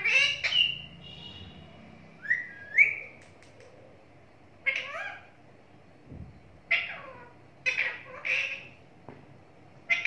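Rose-ringed parakeet giving short squawking calls in clusters a second or two apart, with two rising whistles about two to three seconds in.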